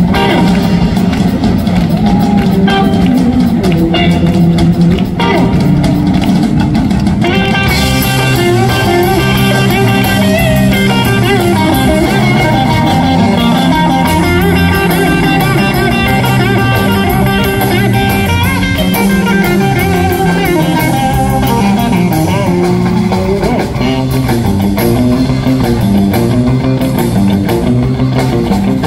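Live rock band playing: drum kit and bass guitar, with electric guitars coming in loudly about seven seconds in and the full band playing on.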